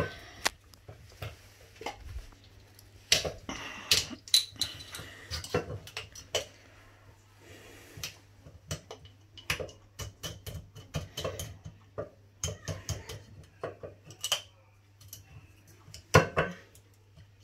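A knife blade and fingers clicking and scraping at the neck and stopper of a glass olive-oil bottle as it is pried open: irregular sharp clicks and taps, with one louder knock near the end.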